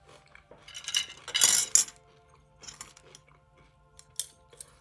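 Metal cutlery clattering against a tray and plate as a knife and fork are picked up: two short rattling scrapes, then a few light clicks.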